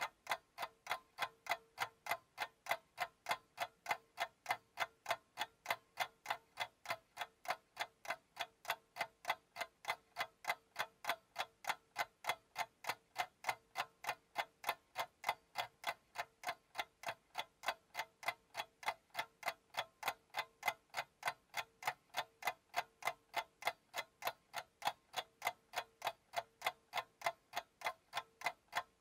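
Timer clock ticking steadily: even, sharp ticks at about two or three a second, with no change in pace or loudness.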